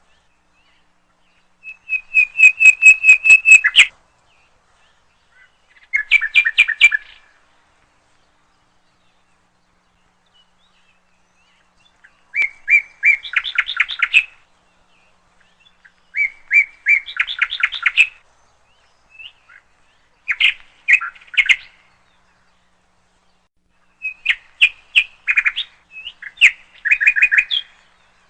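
A songbird singing: short phrases of rapid, repeated trilled notes, each lasting a second or two, coming every few seconds with silent gaps between.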